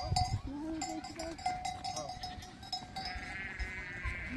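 Sheep and goats bleating, several calls overlapping, with a livestock bell ringing.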